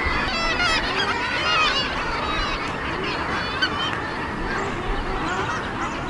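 Seabird colony: many birds calling over one another without a pause, a dense mix of short, rising and falling cries.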